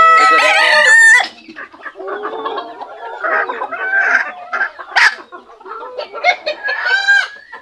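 Bantam chickens (Cochin and frizzle) in a flock: a rooster's long held crow ends about a second in, followed by a run of hens clucking and calling, with another drawn-out call near the end.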